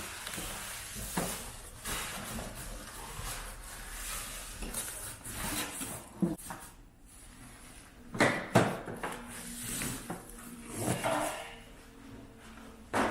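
Unboxing noise: packaging rustling and a boxed coffee machine being handled, with scattered knocks and a few louder thumps about eight seconds in.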